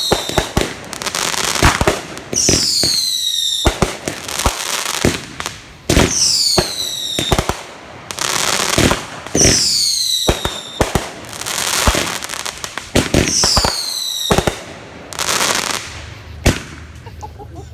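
Consumer fireworks going off. A run of high whistles falls in pitch, about five of them a few seconds apart, each followed by a burst of crackling and sharp pops.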